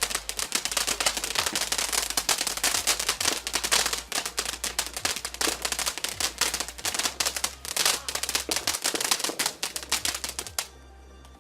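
Firework crackling: a rapid, irregular run of sharp pops and cracks, many a second, that cuts off suddenly near the end.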